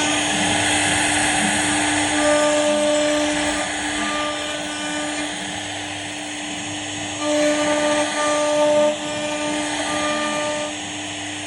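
CNC router spindle running at a steady high speed while its bit cuts wood: a constant whine over a noisy cutting rasp, with overtones and loudness rising and falling as the cut load changes.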